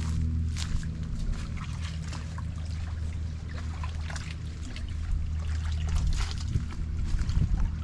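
Solar-powered kayak under way on its electric motor: a steady low hum, with water splashing and trickling against the hull.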